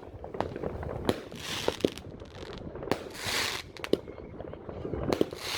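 F2 fireworks battery (cake) firing: sharp shots roughly once a second, several followed by bursts of hissing crackle.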